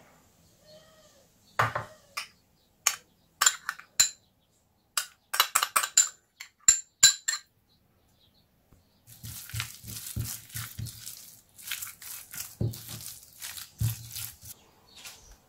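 A series of sharp clinks of a metal spoon and glassware against a glass mixing bowl over several seconds. After a short pause comes about five seconds of the soft, wet scraping of grated carrot and mayonnaise being stirred in the bowl with a silicone spatula.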